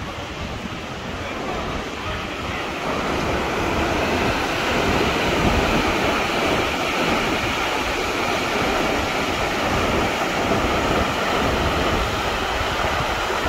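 Wind buffeting the microphone with a steady rushing noise underneath, building over the first few seconds and then holding steady.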